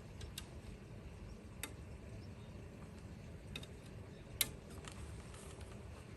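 A few faint, sharp clicks over a low steady background, the loudest about four and a half seconds in.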